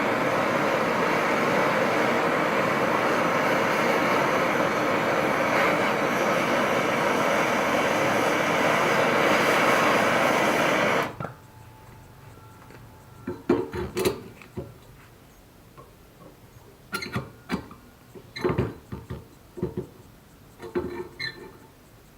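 A steady, loud rushing noise from a shop power tool running cuts off suddenly about eleven seconds in. Scattered clinks and knocks of metal pieces being handled follow.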